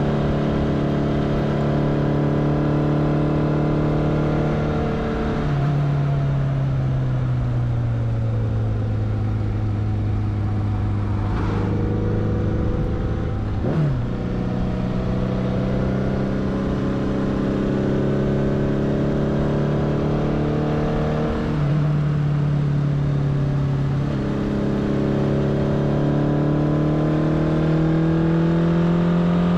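Kawasaki GT550's air-cooled inline-four engine running at road speed. Its pitch changes in steps and glides with gear changes and throttle: it drops and sinks slowly about five seconds in, jumps up about fourteen seconds in, and drops again before climbing steadily under acceleration near the end.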